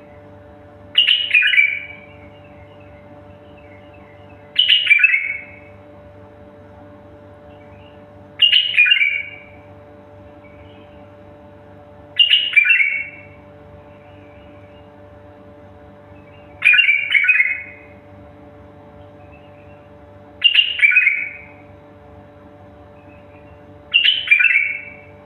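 A songbird repeats a short, sharp descending phrase about every four seconds, seven times, over a steady low hum.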